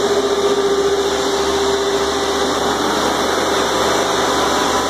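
Shop-Vac wet/dry vacuum running steadily with a constant motor whine, its nozzle held at a gap in the floor to suck up seeping floodwater.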